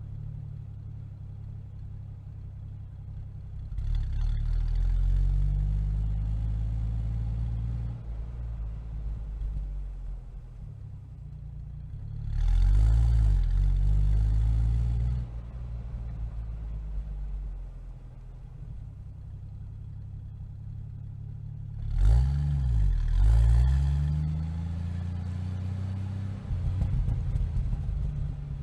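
Jeep engine running while driving. It surges louder three times, about four, twelve and twenty-two seconds in, its pitch rising and falling with each surge, and drops back to a steadier run in between.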